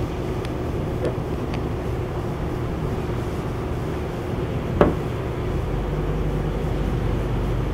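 Steady low drone of a fishing boat's diesel engine, with low rumble on the microphone growing from about halfway through. A single short sharp knock cuts through about five seconds in.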